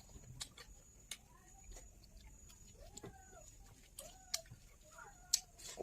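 Sharp wet clicks of someone chewing and smacking while eating. Behind them, a hen clucks faintly: three short rising-and-falling calls about a second apart in the second half.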